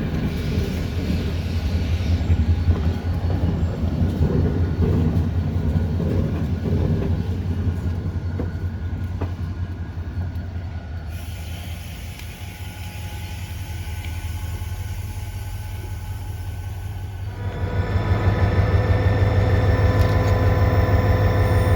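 Diesel locomotive running with its passenger train, a heavy low engine rumble. The rumble eases about halfway through, then a few seconds before the end the engine comes up louder with a steady droning note, as when the locomotive is throttled up.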